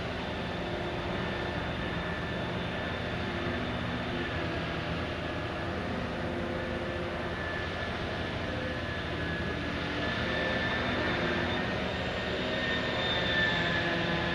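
Heavy diesel and hydraulic machinery of a large backhoe dredger running steadily: a continuous drone with several held tones, growing a little louder about two-thirds of the way through.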